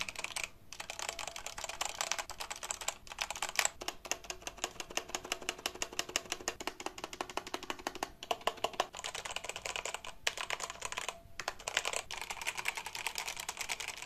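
Gamebooster G918 Fire Storm mechanical keyboard with linear red switches, typed on rapidly: a dense stream of keystroke clacks with a few short breaks.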